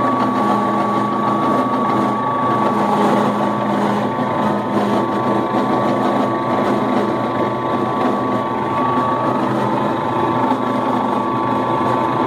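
Milling machine running with its end mill cutting along a steel bar: a steady, unbroken machining sound with a high steady tone over the noise of the cut.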